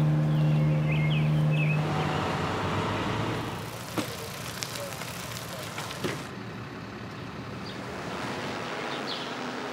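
A loud, steady buzzing hum with birds chirping over it, which cuts off about two seconds in. Open-air outdoor ambience follows, with two sharp knocks and a few faint bird chirps.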